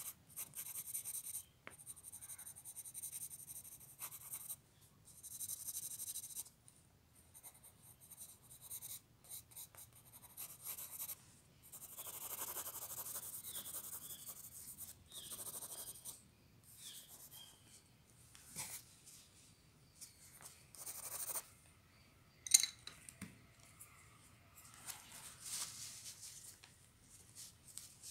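Blue coloured pencil scratching across paper in runs of shading strokes, starting and stopping irregularly, with one sharp tap about 22 seconds in.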